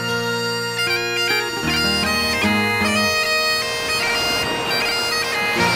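Background bagpipe music: a melody of changing notes played over a steady drone.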